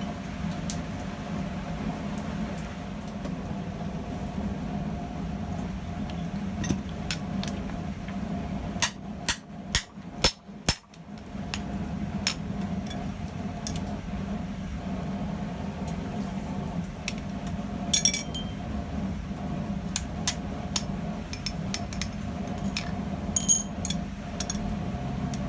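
A hammer striking metal as a rivet is headed in a 5 mm rivet header, giving sharp metallic clinks. There is a quick run of about half a dozen blows around ten seconds in, and a few scattered taps before and after. A steady low hum runs underneath.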